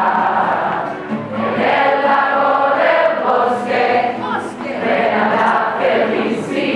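A large group of young voices singing a Spanish-language mealtime song of thanks together, in sung phrases with no pause.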